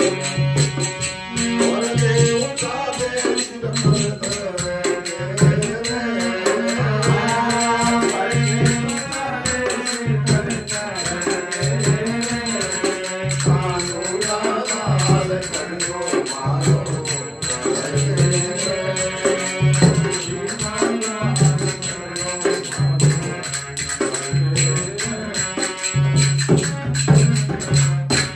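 Devotional bhajan: a man singing to his own harmonium, with a hand drum (dholak) beating a steady rhythm and jingling hand percussion clicking along. The music stops right at the end.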